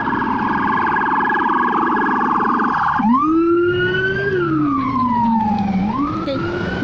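Police car siren in a fast yelp, switching about three seconds in to a slow wail that rises, falls and rises again.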